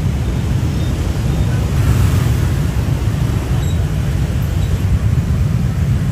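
Loud, steady low rumble of a passing vehicle, with a hiss over it that swells about two seconds in.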